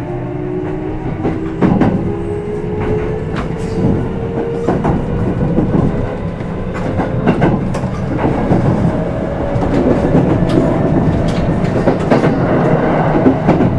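Onboard running sound of a Kintetsu 5211 series electric train, heard in motor car Mo 5261, accelerating. The traction motor whine rises slowly and steadily in pitch over the rumble of the wheels, with scattered clicks as the wheels pass over rail joints.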